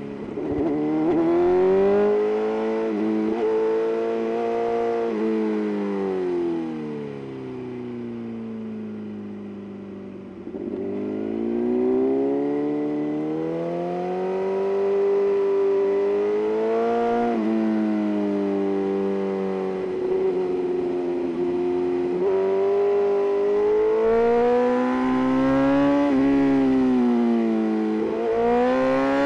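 BMW S1000RR's inline-four engine and exhaust, revving up and down again and again through the curves. The revs fall away to a quieter stretch about a third of the way in, then climb hard again and keep swinging up and down.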